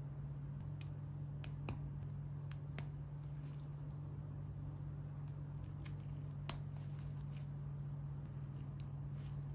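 LEGO plastic bricks clicking as they are pressed together and handled by nitrile-gloved hands: irregular sharp clicks, the loudest about six and a half seconds in, over a steady low hum.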